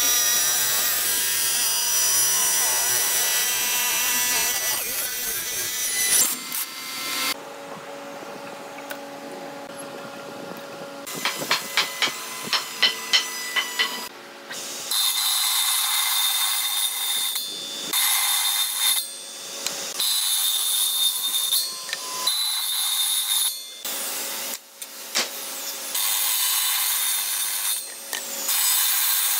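Woodworking machines cutting hardwood. For about the first six seconds a vertical spindle machine with a spinning disc works a wooden part. After a quieter stretch with a string of sharp clicks, a circular saw on a horizontal shaft runs and cuts a tenon in a board, in repeated passes with short breaks between them.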